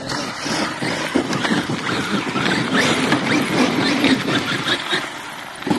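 Electric RC monster truck running hard in sand: drivetrain and gear noise with many short uneven knocks and rattles from the tyres and chassis.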